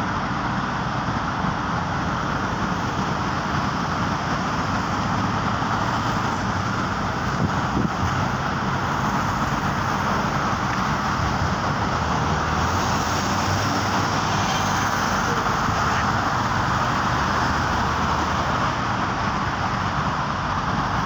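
Steady road traffic noise of cars passing.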